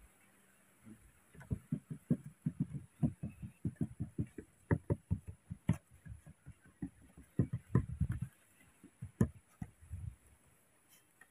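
Soft, irregular low thumps and taps on wooden boards, several a second for about seven seconds, then a few scattered ones: a baby monkey's hands and feet patting on a wooden bench as it walks.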